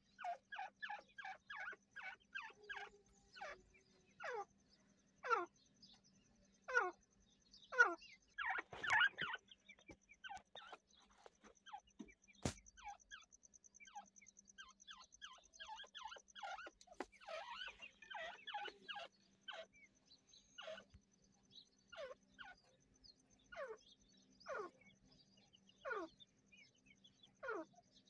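Grey francolins calling: a long series of short calls that drop steeply in pitch, about one every second or two, mixed with stretches of quicker, softer chattering notes.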